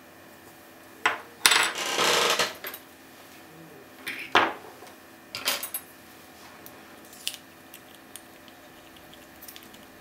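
A metal key and small metal lock tools being set down on a wooden tabletop, clattering. First a click, then a longer clatter, then two shorter knocks a second or so apart, and light ticks near the end.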